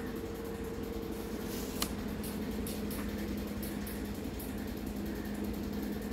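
Steady low hum with faint high crackling over it, and one sharp click about two seconds in.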